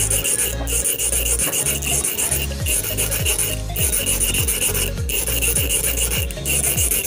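Rapid back-and-forth rasping of a hand file as a squid-jig hook point is sharpened by hand.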